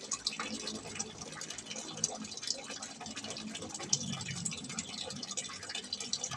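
Water splashing from a simple spout: a steady trickle and patter with many small splashes and drips.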